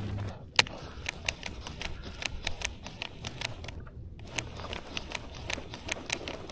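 Irregular light clicks and ticks, a few a second, with one sharper click about half a second in, over a low rumble.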